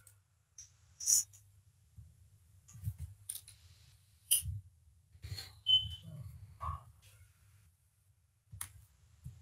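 Scattered sharp clicks and taps from a computer mouse and keyboard, about half a dozen spread out, over a faint low hum, with a brief high beep about six seconds in.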